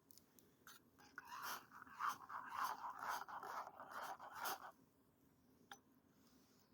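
Rustling and scraping with many small clicks, lasting about three and a half seconds from about a second in.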